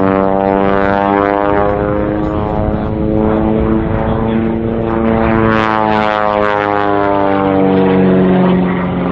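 Red Zlin 142C light aerobatic airplane flying overhead, its piston engine and propeller droning. The pitch slides down, rises again about halfway through, then falls as the plane passes.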